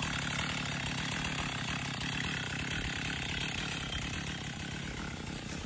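Gas-powered chainsaw running steadily.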